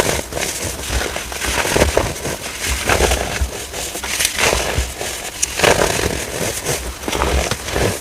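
Compressed baking soda being crushed: repeated, irregular crunching and crackling, several crunches a second with soft low thumps under them.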